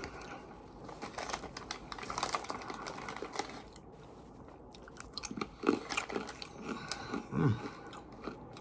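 Close-up crunchy chewing of dried banana chips: dense crackling bites, with a quieter pause in the middle, then a few louder crunches.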